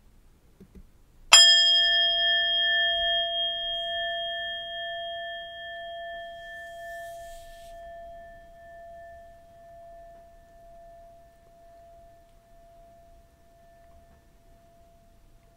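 Singing bowl struck once, about a second in, then ringing on in a long slow fade: the higher overtones die away first, leaving the low tone wavering gently to the end. It marks the start of a round of meditative reading.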